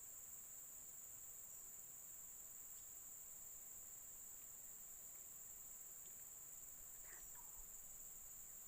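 Steady high-pitched insect chorus, with a faint short call about seven seconds in.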